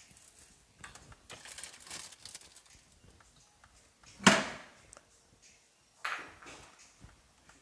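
A few light rattles, then a sharp knock about four seconds in and a softer knock about two seconds later: objects being handled and set down.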